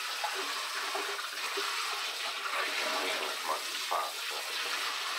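Kitchen faucet running in a steady spray into a stainless steel sink, water splashing over raw chicken wings as they are rinsed and turned by hand.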